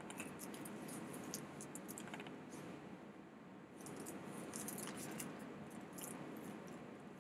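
Faint, scattered light metallic clinks and ticks from the chain-link shoulder strap of a Chanel Classic Flap bag as it is handled and shifted. They come in two clusters, near the start and again about four to six seconds in, over a quiet room hiss.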